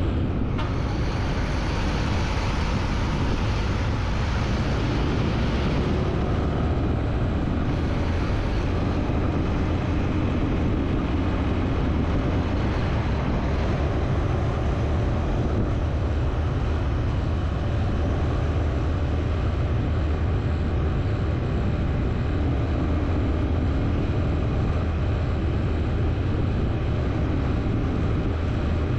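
Steady vehicle running noise, an unbroken rumble that holds at one level throughout.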